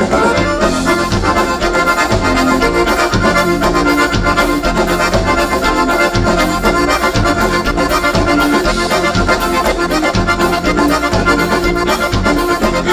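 Instrumental passage of gaúcho dance music played by a live band, led by accordion, over a steady quick beat with no singing.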